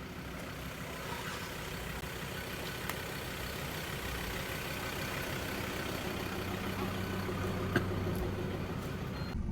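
Four-wheel-drive engine running at low revs, growing slowly louder, with a sharp click about eight seconds in; the sound changes abruptly just before the end.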